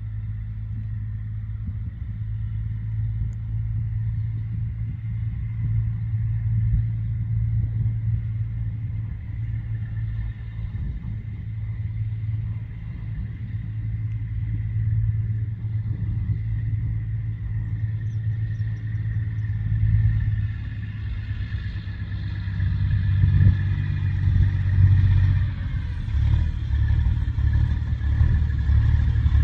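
Diesel semi truck pulling a tanker trailer, a low engine rumble that grows louder as the truck approaches. It is loudest over the last ten seconds, where the engine note rises and falls.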